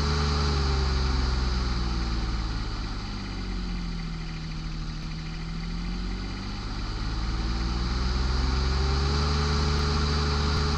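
A vehicle engine running steadily, its pitch easing down through the middle and climbing back up again.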